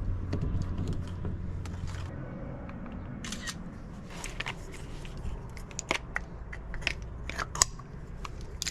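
Scattered sharp clicks and light rattles of small tools being handled, over a low steady hum that stops about two seconds in.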